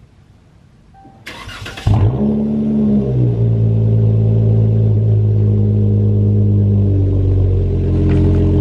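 Dodge Charger with a straight-piped exhaust and Big Boss mid mufflers being started: a brief whir of the starter, then the engine catches about two seconds in with a loud flare of revs and settles into a steady, deep idle.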